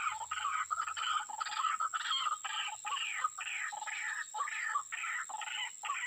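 White-breasted waterhen (ruak-ruak) calling: a rapid, unbroken run of harsh repeated notes, about three a second, the call used as a lure to bring the birds to a snare. A steady thin high whine runs underneath.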